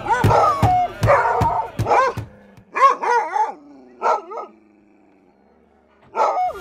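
Sled dogs barking in a string of short barks, stopping about four and a half seconds in, with one more bark near the end.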